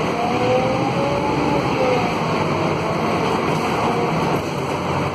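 Inside the cabin of a Scania K280 city bus under way: its Scania DC09 five-cylinder diesel and ZF Ecolife automatic gearbox running, over steady road noise. A faint whine rises and falls in pitch and fades out after about two seconds.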